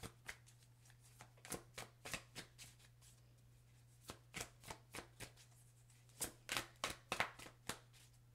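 A deck of tarot cards shuffled by hand overhand, a quick patter of soft card slaps in three bursts with short pauses between.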